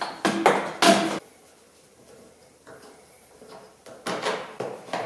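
Sharp knocks and clatter of car parts being handled, a cluster in the first second and more about four seconds in, with a quieter spell between.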